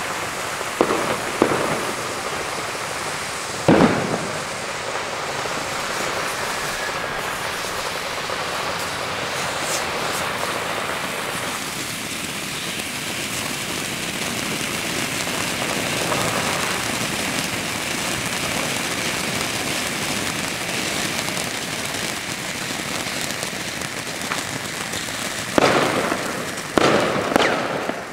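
Homemade set of ground fireworks (fountains and Bengal torches) burning with a steady rushing hiss. A few sharp pops come in the first four seconds, and several louder bangs and crackles near the end.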